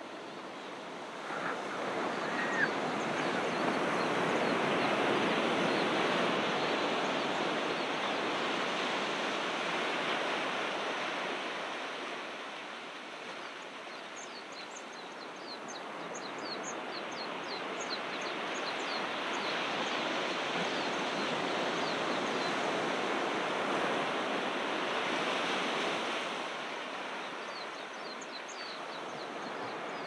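Ocean surf breaking and washing up the beach in two long swells: the first surges about two seconds in, the second builds from about halfway and falls away near the end.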